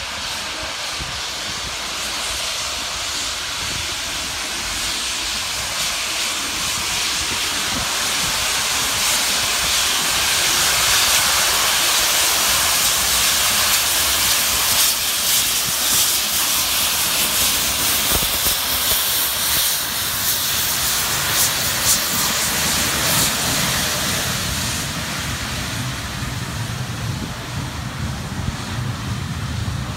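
Main-line steam locomotive getting a train under way and passing close by, a loud hiss of steam blowing from its open cylinder drain cocks building to a peak in the middle. Near the end the coaches roll past with a low rumble.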